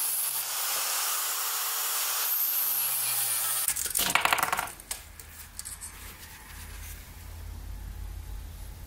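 Angle grinder grinding the steel head of a railroad spike: a steady hiss with a whine for about three and a half seconds, then it stops. Metal spikes then clink and rattle against each other for about a second, followed by a quieter low hum.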